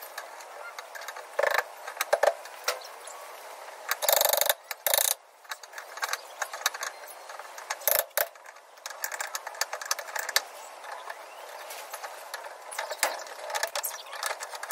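Hand socket ratchet clicking in quick runs as bolts on a car's tow bar are undone, with a few louder metal clanks from the tow bar parts.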